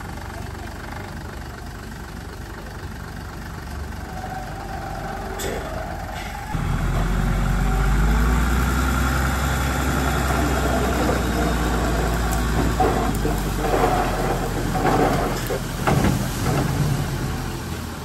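Diesel engine of heavy earthmoving equipment running steadily, then revving up sharply about six and a half seconds in and running hard under load. It surges unevenly, with some knocks, near the end before dropping back.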